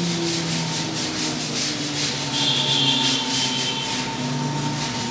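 CNC wood router carving: a rasping cutting hiss that pulses a few times a second, over a steady whine and low motor tones that shift in pitch in steps as the machine moves.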